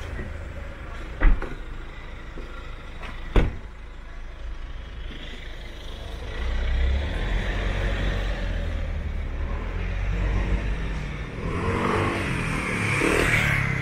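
Street traffic: a motor vehicle goes by close at hand, its low engine rumble and tyre noise swelling from about six seconds in and loudest near the end. Earlier come two sharp knocks about two seconds apart.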